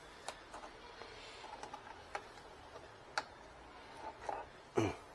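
Scattered light clicks and taps of plastic printer parts being handled, a few single clicks spread through, a brief rustle and a louder knock near the end.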